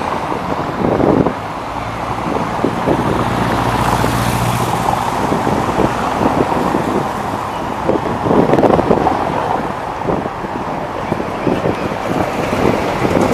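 City street traffic: cars running past and general road noise, with wind gusting on the microphone.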